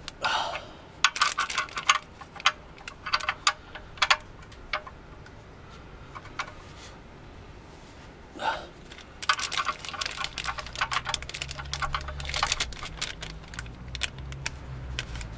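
Hand ratchet wrench clicking in quick bursts of rapid clicks as a bolt is run in and tightened; a low rumble joins about ten seconds in.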